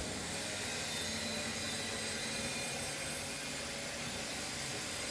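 Steady, even hiss of background noise at moderate level, with no distinct knocks, scrapes or other separate events.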